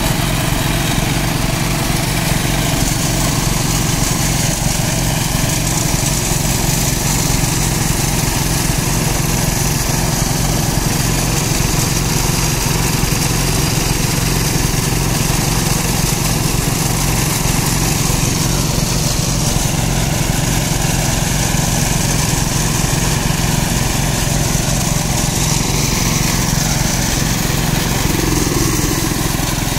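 Portable petrol-engine abrasive rail saw running steadily while its cutting disc grinds through a steel rail, with a steady high hiss over the engine's drone; a second small engine-driven track machine runs alongside.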